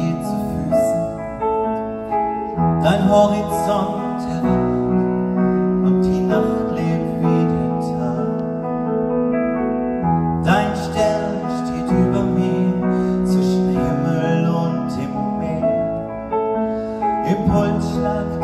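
A woman singing a slow song live, accompanied by piano.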